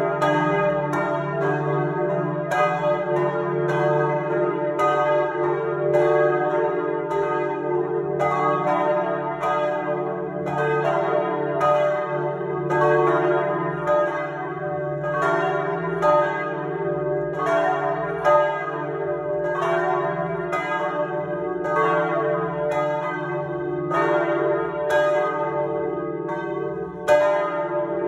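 Three 1860 Perrin-Martin bronze church bells swinging and ringing together in full peal, heard close up inside the belfry: a steady stream of overlapping clapper strikes over the bells' lingering hum.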